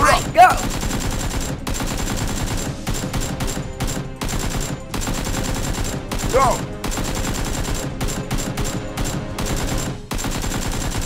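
Rapid, continuous automatic gunfire, the dubbed sound effect laid over the Nerf blasters. There are brief shouts near the start and again about six seconds in.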